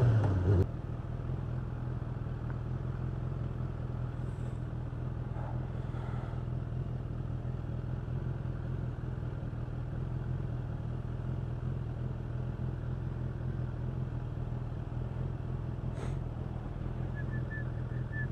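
Suzuki Bandit motorcycle's inline-four engine with an Ixil aftermarket exhaust. It revs briefly, drops off about half a second in, then runs at a steady idle.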